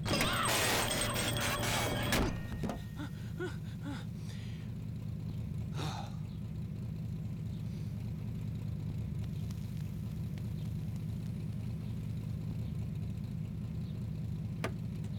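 A car engine idling with a steady low hum, after a loud burst of clattering and ringing for the first two seconds.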